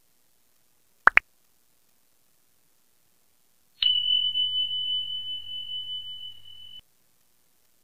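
Subscribe-button animation sound effects: a quick double pop as the button is clicked, then a single bell ding about three seconds later that rings on one steady high note, fading slowly for about three seconds before cutting off suddenly.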